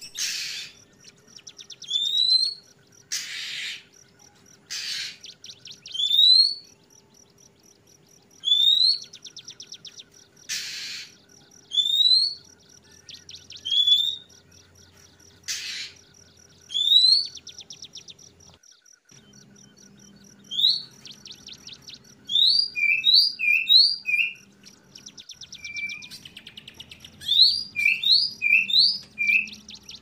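Oriental magpie-robin calling. It gives short rising whistled notes every second or two, mixed with a few loud rasping bursts and fast ticking runs. In the last third the whistles come in quick runs of three, each answered by a lower note.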